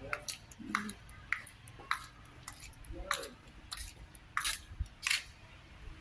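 Footsteps clicking on a paved seaside walkway at an easy walking pace, about one step every half-second to second, over a low wind rumble.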